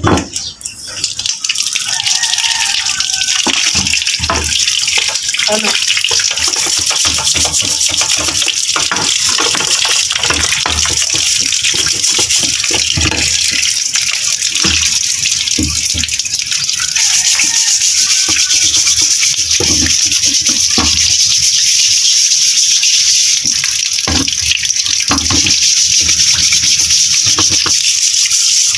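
A stream of running water pours and splashes steadily into a pit under a hog scale, starting about a second in and growing louder about halfway through, with scattered knocks as parts are handled and scrubbed.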